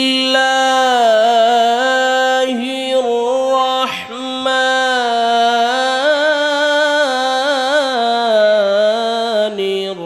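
A man reciting the Quran in the melodic, drawn-out tilawat style. He holds long notes with wavering ornaments and takes a short break about four seconds in.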